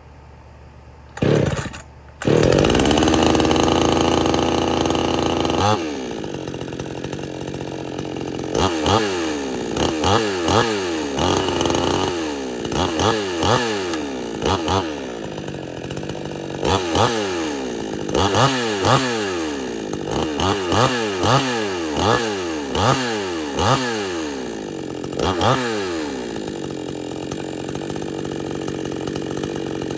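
62cc two-stroke Extreme Power 6200 chainsaw being pull-started after sitting unused for a while. A short pop on the first pull, then it catches about two seconds in and runs fast before dropping to idle. It is then revved in a long series of quick throttle blips, about one a second, and settles back to a steady idle near the end.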